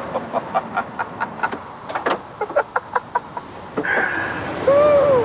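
A man laughing in a quick string of short chuckles, ending in one drawn-out laugh that rises and falls in pitch.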